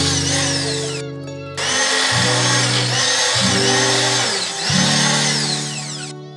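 Immersion blender motor running in a pot of soup, puréeing the cooked butternut squash. It runs in several spurts with short dips in between and fades near the end. Background music plays underneath.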